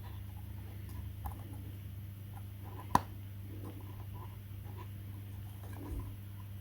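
Quiet handling noise: faint scratches and light taps, with one sharp click about three seconds in, over a steady low hum.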